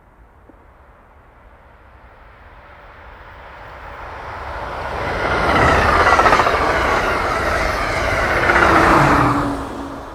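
Amtrak passenger train passing at speed: a rushing rumble of wheels on rail builds over several seconds, stays loud for about four seconds with a whine that drops in pitch as it goes by, then falls away quickly near the end.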